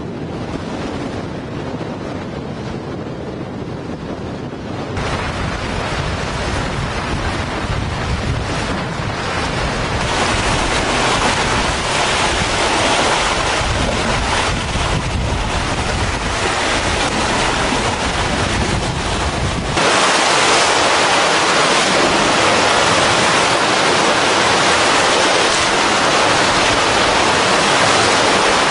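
Wind blowing across the microphone over the wash of sea waves, aboard a sailing catamaran. The noise gets louder in abrupt steps about five, ten and twenty seconds in, ending as a loud, steady hiss.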